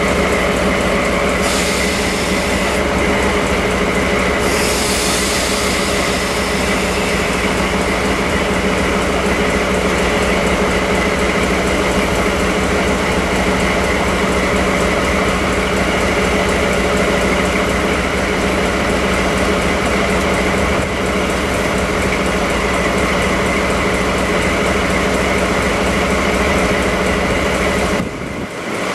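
DE10 diesel-hydraulic locomotive's V12 diesel engine running steadily at idle, a steady drone with a fixed hum. Two short hisses come in over it in the first few seconds.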